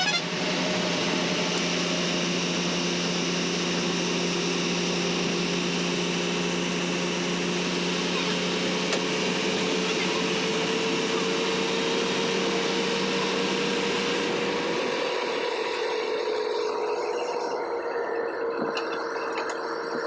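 Engine and road noise heard from inside a moving bus: a steady drone with a whine that slowly rises in pitch, over rushing wind and tyre hiss through the open window.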